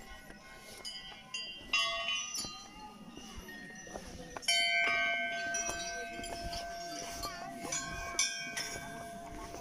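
Metal temple bells struck several times, each strike ringing on in long steady tones that overlap; the loudest strike comes about four and a half seconds in and keeps ringing to the end.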